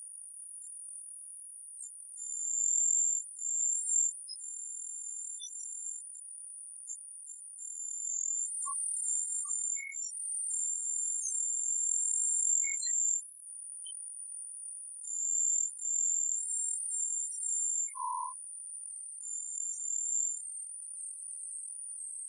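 Very high-pitched electronic sine tones at two pitches, switching on and off irregularly, with a few short lower beeps scattered through, the clearest about eighteen seconds in.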